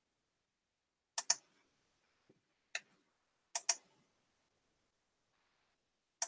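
Sharp clicks at a computer: a quick double click about a second in, a single click, another double click, and one last click near the end.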